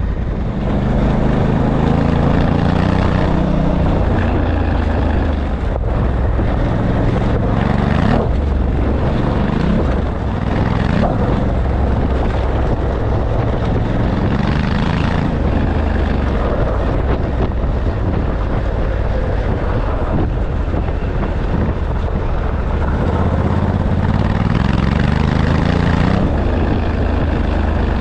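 A large engine running with a deep, steady rumble, its pitch rising and falling several times as it is revved.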